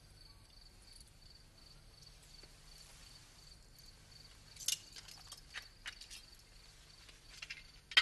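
A cricket chirping steadily at a high pitch, about five chirps a second. From about halfway there are scattered clicks and rustles of things being handled, the sharpest near the end.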